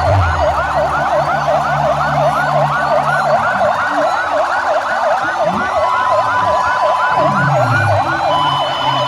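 Several ambulance and volunteer motorcycle sirens sounding together in a fast yelp, about four sweeps a second, overlapping. One holds a steady tone for a while past the middle, over a low engine drone.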